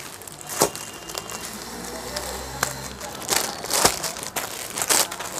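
Saree packs in clear plastic covers crinkling as they are handled and laid down, in a string of short, irregular crackles.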